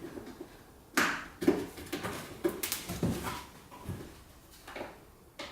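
Card tabs being bent flat and pushed into slots on a box: a handful of separate scrapes, crinkles and taps, the first about a second in.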